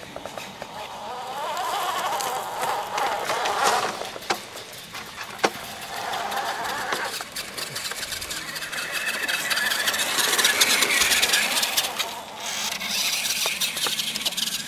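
Battery-powered toy RC trucks driving over grass, their electric motors and gearboxes whining in three spurts, the pitch rising as they speed up, with scattered clicks.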